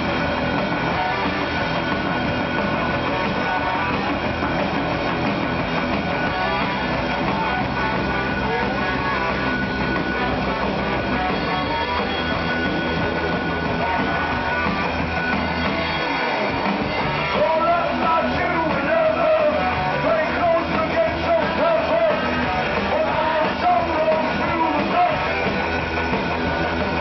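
Rock band playing live, with electric guitars, bass and drums. It gets louder about two-thirds of the way in, as a wavering higher melodic line comes to the front.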